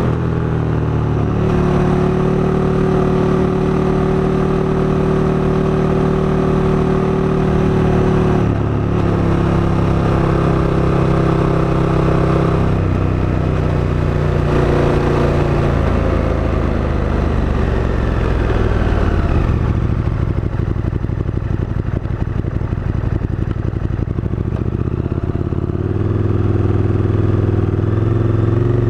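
KTM 1290 Super Duke GT's V-twin engine running as the motorcycle is ridden, heard from on the bike. The engine note holds steady, dips briefly about a third of the way in, then falls gradually over several seconds past the middle as the bike slows, and picks up again near the end.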